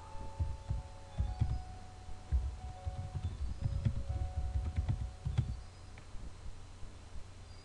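Typing on a computer keyboard: irregular key presses and taps, thinning out near the end.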